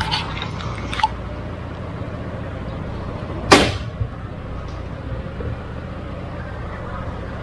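Motorcycle engine running steadily at idle, with a few light clicks in the first second and one brief, sharp whooshing burst about three and a half seconds in.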